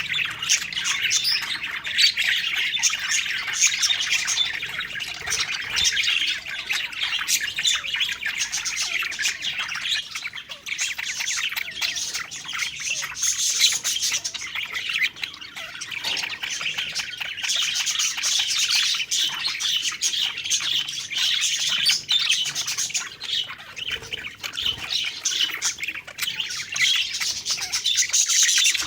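A flock of budgerigars chattering, chirping and warbling continuously, many birds at once in a dense, busy stream of quick high chirps and squawks.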